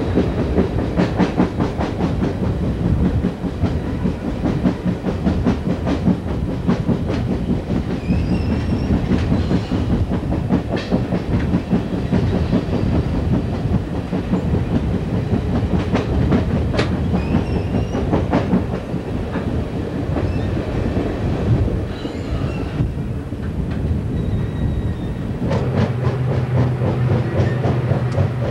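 VIA Rail Canadian passenger train running, heard from an open window of one of its own cars: steady rumble and rushing air with wheels clicking over rail joints, and a faint wheel squeal now and then on the curves. Near the end a steady low hum joins in.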